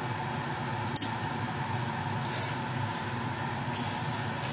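Cooked instant noodles tipped from a saucepan into a ceramic bowl with a brief splashing hiss near the end, a sharp click of chopsticks on the pan about a second in, over a steady fan-like hum.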